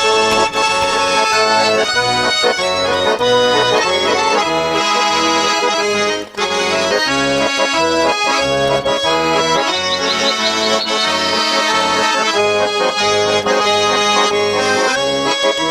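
Instrumental break of a Russian pop ballad with no singing: a sustained melody line over a steady, regular bass and beat, with a brief drop about six seconds in.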